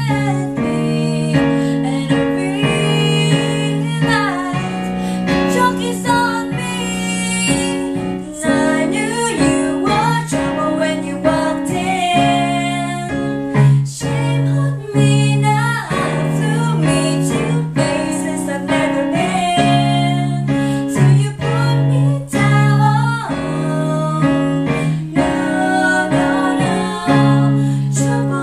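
Two female voices singing a pop song together, accompanied by chords on a Roland RD-150 digital stage piano.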